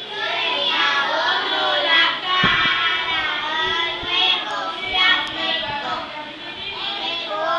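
A group of preschool children singing a song together, many young voices at once. A dull knock sounds about a third of the way in.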